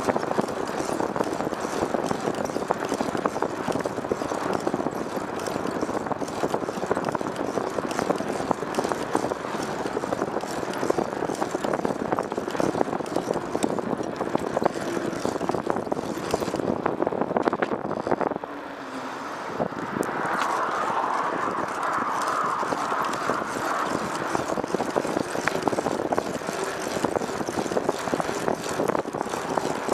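Steady rush and drone of a moving vehicle, with wind crackling on the microphone. It briefly drops away about eighteen seconds in, then returns.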